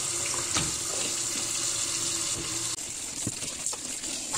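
Kitchen tap running into a steel bowl of wild mushrooms in a stainless-steel sink, the water splashing as a hand stirs the mushrooms to rinse the sand off them. The splashing turns a little softer past the middle, with a few small knocks.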